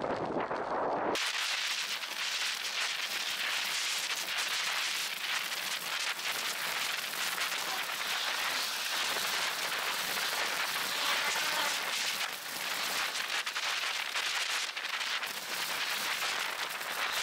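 Dense crackling hiss, mostly high-pitched and steady, that takes over from a lower wind rumble about a second in: noise picked up by a bike-mounted camera's microphone while riding.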